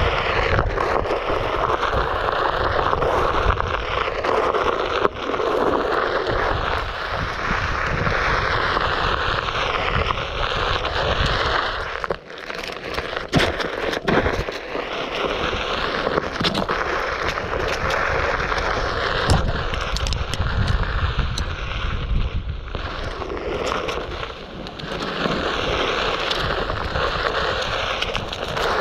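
Onewheel Pint's single tyre rolling over a dirt trail at speed, a steady rolling, scraping rumble, with a brief lull and a few sharp knocks about halfway through.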